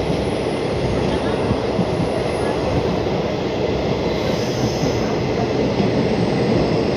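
Running noise of a DMU train at speed, heard from its open doorway: a steady rumble of wheels on rail mixed with rushing wind. A faint high whine joins in about four seconds in.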